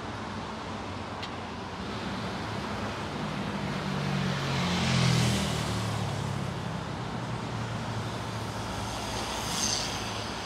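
Steady traffic on a multi-lane expressway heard from an overpass above: tyre and engine noise, with one vehicle's engine hum growing louder and passing about halfway through.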